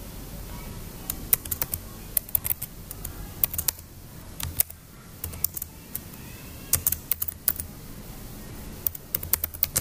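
Keystrokes on a computer keyboard, typing in irregular bursts with short pauses between them, starting about a second in.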